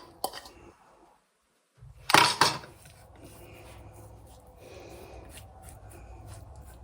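A short clatter of kitchen dishware or utensils about two seconds in, then faint handling noise over a steady low hum.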